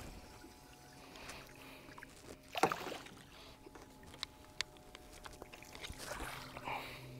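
A hooked snook splashing at the water's surface beside the boat, with one loud splash about two and a half seconds in, then water sloshing as it is scooped into a landing net near the end. A couple of sharp clicks and a faint steady hum lie underneath.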